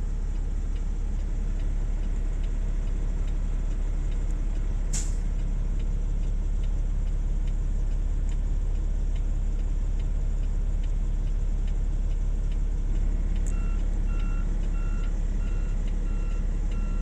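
Low, steady diesel rumble of heavy equipment working, a wheel loader and trucks, with a short hiss of air about five seconds in. From about two-thirds of the way through, a backup alarm beeps steadily, about three beeps every two seconds.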